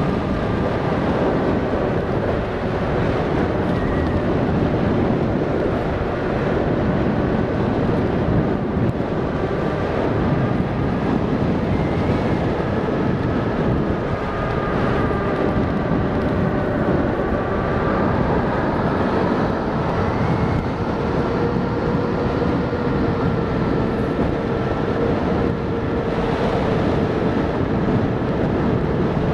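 Electric motorbike being ridden at speed: wind rushing over the microphone, with the motor's faint whine drifting up and down in pitch as the speed changes.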